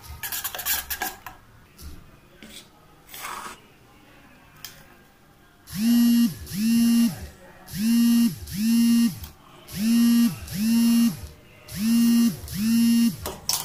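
A steel spoon clinks and scrapes around a steel bowl, stirring chopped onion and egg. Then, about six seconds in, a loud humming tone starts. It comes in pairs of short notes, each rising in pitch, holding and falling, about every two seconds, four pairs in all.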